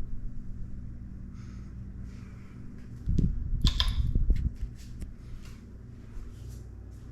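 Hampton Bay Ellijay ceiling fan running with a steady low hum. About three seconds in, a short cluster of knocks and rustling, louder than the fan, lasts a second or so.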